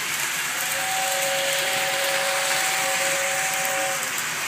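Lionel O-gauge toy steam train set running on its track with a steady hiss, while its whistle sounds a two-note chord held for about three seconds, starting shortly after the beginning.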